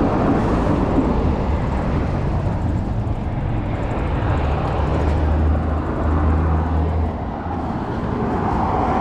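Road traffic noise and low wind rumble on the microphone of a moving bicycle. A low, steady engine hum swells about halfway through and fades a couple of seconds later.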